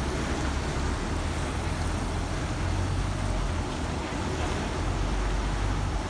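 Wind buffeting the microphone: a steady low rumble that swells and eases, with a hiss over it.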